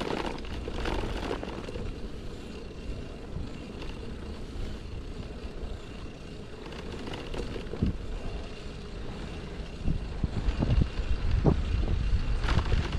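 City street ambience with road traffic passing: a steady low rumble of cars and other vehicles, with a few short low surges in the second half.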